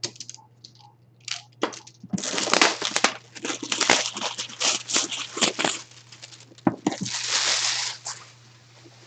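Clear plastic shrink wrap crinkling and tearing as it is pulled off a box: a quick run of sharp crackles, then a longer rustle near the end.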